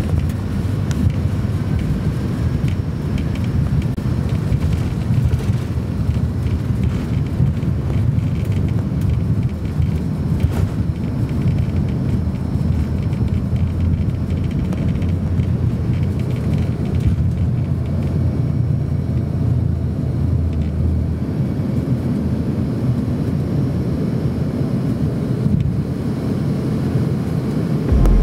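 Cabin noise inside an Embraer E145 regional jet during takeoff and climb: a steady, heavy rumble from its rear-mounted Rolls-Royce AE 3007 turbofans and the rush of air past the fuselage.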